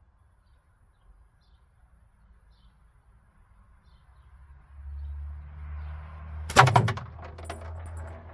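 Slingshot shot with a 10 mm steel ball: a sharp crack about six and a half seconds in, with a short clattering rattle from the target and a few fainter clicks after it. A low steady rumble sets in a couple of seconds before the shot.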